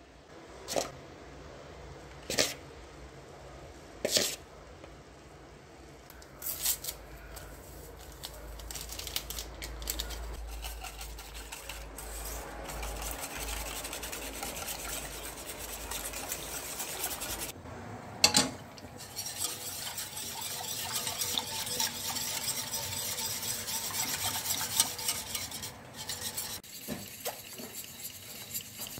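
A hand whisk stirring a milk-and-flour pudding mixture in a stainless steel pot, scraping and clinking against the metal. A few sharp clinks come in the first seconds, and there is one loud knock a little past the middle.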